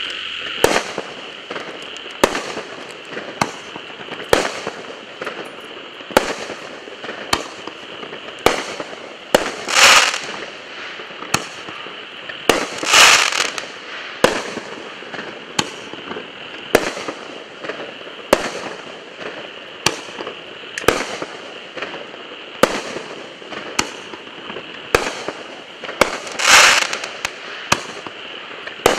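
A 16-shot firework cake firing: sharp launch and burst reports about once a second, with a few louder, longer bursts about 10, 13 and 26 seconds in.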